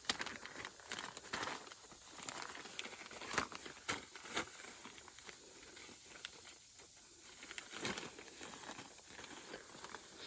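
A coiled power cord and plastic zip ties being handled: irregular rustling and crinkling with scattered sharp clicks as the cord is bundled and tied up.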